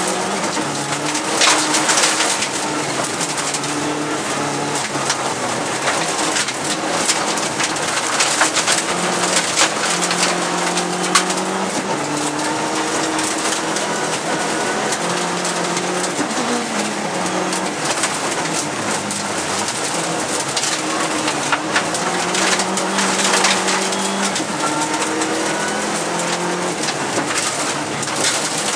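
Lancia Delta Integrale 16v's turbocharged four-cylinder engine, heard from inside the cabin, revving hard and then dropping back again and again as it shifts through the gears. Loose gravel hisses and rattles against the car's underside throughout.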